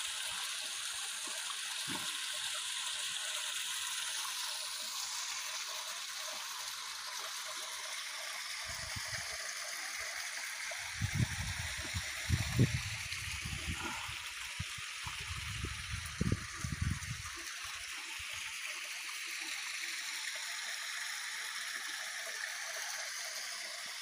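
Water of a small natural spring running out from under a rock overhang and splashing into a pool: a steady rushing hiss. Several low thumps come between about 9 and 17 seconds in.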